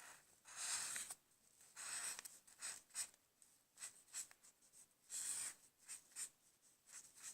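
Felt-tip marker drawing on paper in short, quick strokes, about one or two a second, as a drawing is coloured in.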